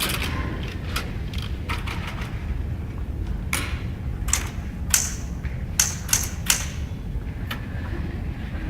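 Typewriter keys being struck: irregular sharp clacks, a dozen or so, some close together and some spaced out, over a low steady room rumble.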